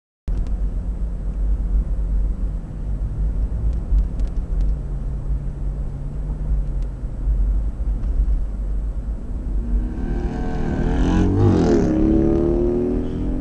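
Steady low road and engine rumble inside a moving car. About ten seconds in, another vehicle's engine comes up close, its pitch sweeping up and then down as it passes, and fades by the end.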